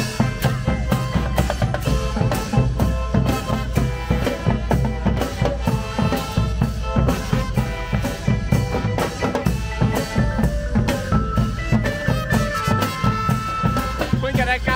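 Thai marching brass band (trae wong) playing a lively tune: bass drums, snare drums and cymbals keep a steady beat under trumpets.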